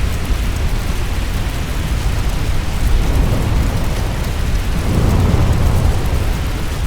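Firestorm sound effect: a dense, continuous deep rumble with a hiss over it, swelling about five seconds in and easing off near the end.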